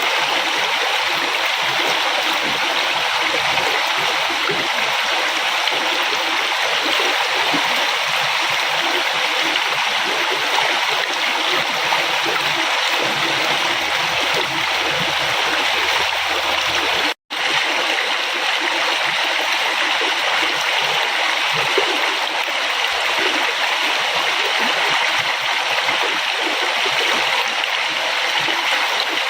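A flowing river: a steady rush of water, cut by a split-second dropout to silence a little past halfway.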